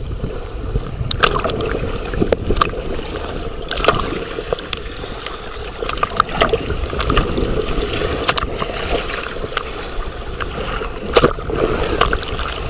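Water splashing and gurgling, with scattered sharp knocks and a low rumble of wind on the microphone.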